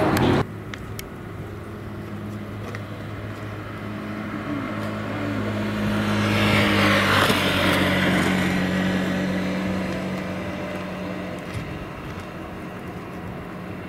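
Riding-along road noise of a golf cart: a steady low motor hum, with a vehicle passing close by about halfway through, swelling and then fading as its pitch drops.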